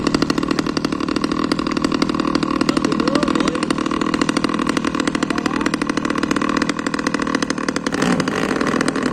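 Small engine of a model fishing boat running steadily with a fast, even putter while the boat tows a round basket boat.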